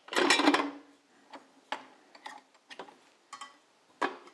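KitchenAid tilt-head stand mixer being opened after whisking: a loud clunk and rattle right at the start, a scattering of light clicks, then a metallic clatter near the end as the wire whisk and stainless steel bowl are handled.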